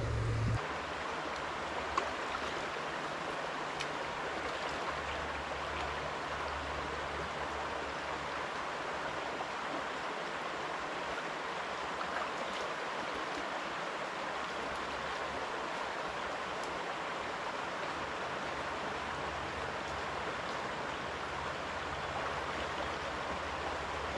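River water rushing steadily, with a couple of faint clicks.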